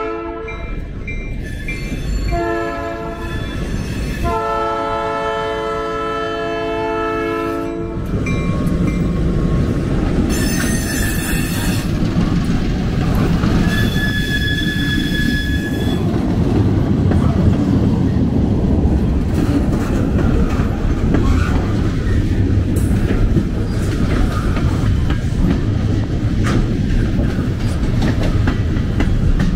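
Freight locomotive's chord horn sounding a series of blasts at a grade crossing, the last one held long and cut off about eight seconds in. The locomotive and its loaded gondolas then rumble past over the crossing, with clickety-clack from the wheels and a brief wheel squeal about halfway through.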